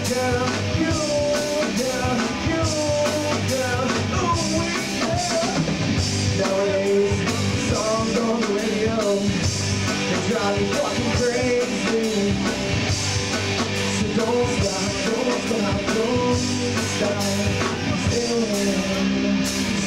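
Live rock band playing a song, with electric guitar and drum kit.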